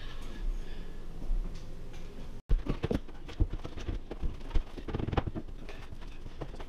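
Irregular knocks and taps of hands handling wooden kitchen base cabinets, with a brief dropout in the sound about two and a half seconds in.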